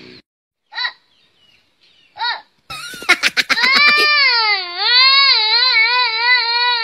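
A young child's high voice: two short cries about a second and a half apart, then a quick stuttering run of sounds and a long wavering wail held for several seconds.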